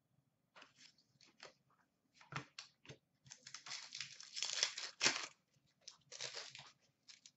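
Hockey card pack wrapper being torn open and crinkled by hand: a run of quiet, irregular crackling and tearing, busiest in the middle and again near the end.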